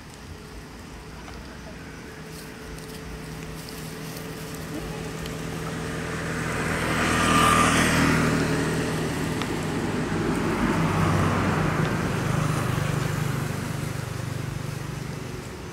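A motor vehicle passing by: its engine and road noise grow louder to a peak about halfway through, swell again a few seconds later, and fade away near the end.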